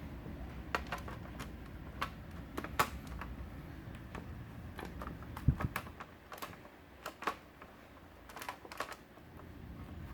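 Clicks and taps on a laptop's plastic case and keys as it is handled, coming irregularly, with one low thump about halfway through.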